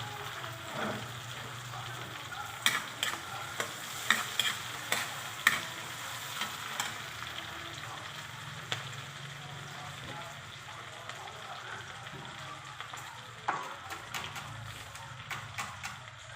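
Onions and tomatoes frying in a pan: a steady sizzle over a low hum, broken by sharp clicks and pops that bunch up a few seconds in and again near the end.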